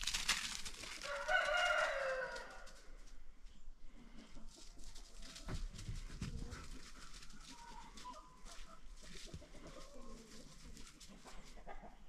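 Footsteps crunching through thin snow and leaf litter. About a second in there is one drawn-out animal call, about a second and a half long, with a slight downward slide in pitch, a crowing call like a rooster's. A few faint short calls follow near the end.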